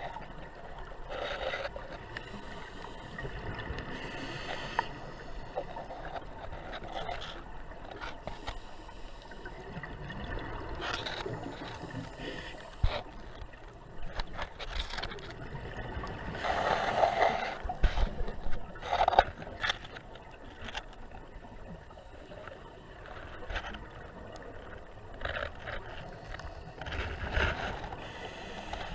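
Underwater sound through a camera housing: a steady muffled wash broken every few seconds by bursts of bubbling from a scuba diver's exhaled breath, loudest in a cluster about halfway through, with scattered scrapes and knocks.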